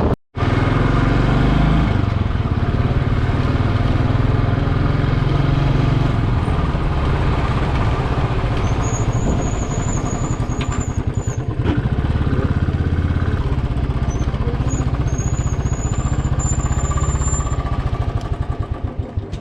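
Motorcycle engine running steadily while being ridden. A thin, high wavering squeal comes and goes twice midway.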